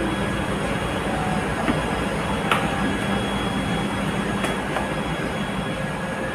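Steady drone of ship's machinery with a constant hum. Two light knocks come through it, about two and a half and four and a half seconds in.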